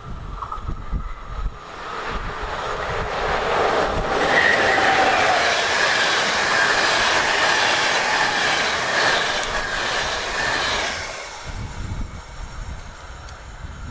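Škoda class 151 electric locomotive and its passenger coaches passing at speed: the rumble and wheel noise build over a few seconds, stay loud for about seven seconds with a steady high whine from the wheels, then fade away near the end, leaving wind on the microphone.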